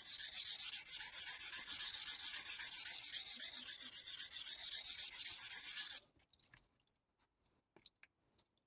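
Kitchen knife blade stroked rapidly back and forth on a wet Taidea whetstone, a steady fast scraping that cuts off suddenly about six seconds in. A few faint clicks follow.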